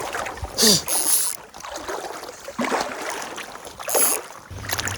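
Water splashing and sloshing around a float tube as it is pushed off from shore into the lake, in a few short splashes about a second in and again near four seconds.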